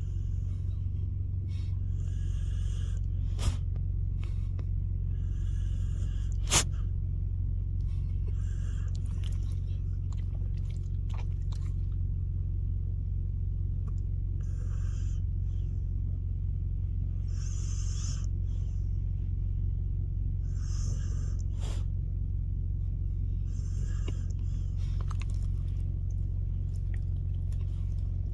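Husky snoring, a soft hissy breath about every three seconds, over a steady low rumble. Two sharp clicks come a few seconds in.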